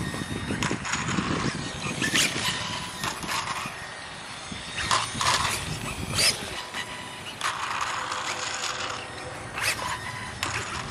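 Losi Promoto-MX quarter-scale electric RC dirt bike riding on asphalt: its brushless motor and chain drive whine in short, uneven bursts as the throttle is blipped through turns.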